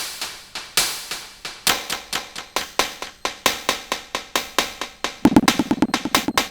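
Sonic Potions LXR-02 drum machine playing a techno pattern with the kick drum dropped out: sharp percussion hits about once a second with quieter ticks between. A fast, pulsing pitched sound comes in about five seconds in.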